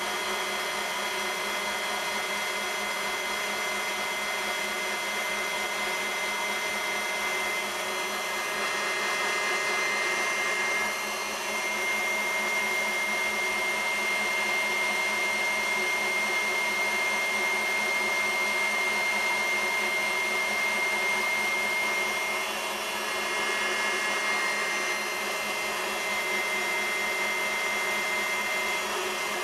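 KitchenAid Heavy Duty K5SS stand mixer running unloaded, its wire whip spinning in an empty stainless bowl: a steady motor whine with gear hum. The pitch and level shift slightly about 11 seconds in and again about 22 seconds in.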